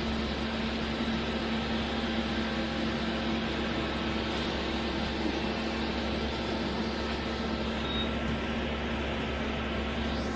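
Hyundai WIA LV 1100 RM CNC vertical lathe running: a steady, even mechanical drone with a low hum and a steady tone held underneath.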